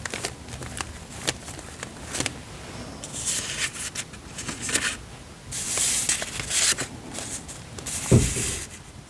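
Paper handled close to the microphone: printed cutouts and planner pages rustling and sliding in three short spells, with small clicks and taps between them and a soft thud about eight seconds in.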